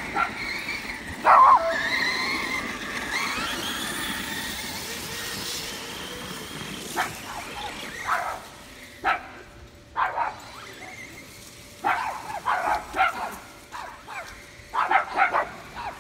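Electric RC cars' brushless motors whining, the pitch rising and falling as they speed up and slow down over the first few seconds. Then a dog barking in short barks, several times, most often near the end.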